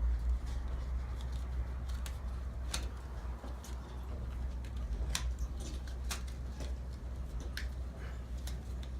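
Irregular sharp clicks and small scrapes of hand work at a motorcycle fork seal, over a steady low rumble.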